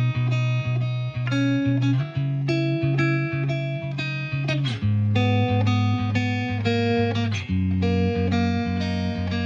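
Background music led by a plucked guitar, picking notes over a steady bass line.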